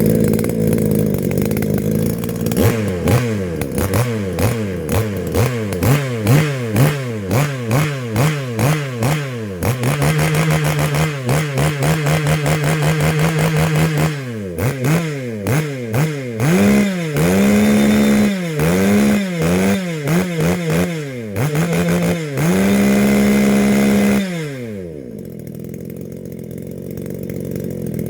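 Echo V3501 two-stroke chainsaw engine running after a piston ring replacement: the throttle is blipped over and over in quick rev-ups, held at high revs twice for a few seconds, and then let drop to a steady idle near the end.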